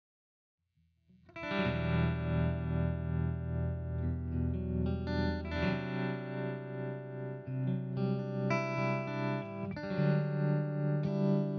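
Stratocaster-style electric guitar chords played through the J. Rockett Revolver pedal's stereo vibe, set to its slowest rate and lower intensity for a slow, gentle swirl. The chords start after about a second of silence and ring on, changing chord several times.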